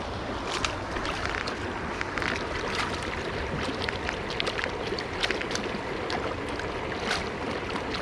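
Fraser River current running, a steady rush of water, with brief sharp ticks scattered throughout.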